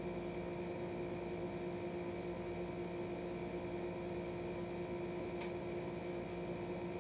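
Steady mechanical hum of background noise in a small room, from a running appliance or fan, with a faint click about five and a half seconds in.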